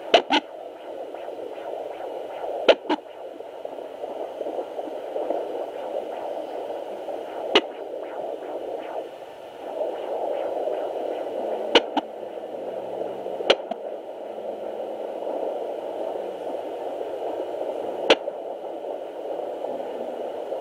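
Unborn baby's hiccups heard as sharp pops every few seconds, some in quick pairs, over a steady hiss.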